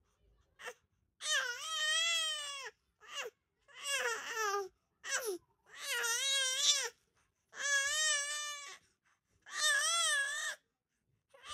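A five-month-old baby boy making about six long, high, wavering cry-like calls, each a second or so, with short pauses for breath between them. His father says this is the baby playing with his own voice, not crying.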